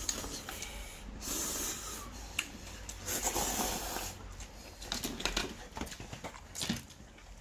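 Person slurping ramen noodles and broth: two long, noisy slurps in the first half, then small scattered clicks.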